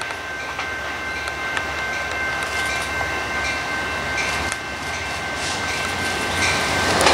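Amtrak GE P42DC diesel locomotive approaching with a passenger train: a low engine rumble with scattered light clicks, under steady ringing tones from the active level-crossing bells. The train noise swells sharply right at the end as it draws close.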